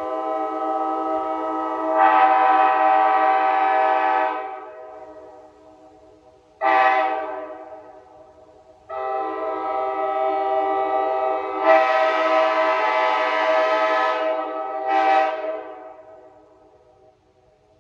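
Nathan Airchime K5LA five-chime train horn (early-2000s round-tag version) sounding a chord in four blasts. A long blast swells louder about two seconds in, then comes a short blast, then another long blast that swells near its middle, and a last short blast. Each blast trails off after it cuts.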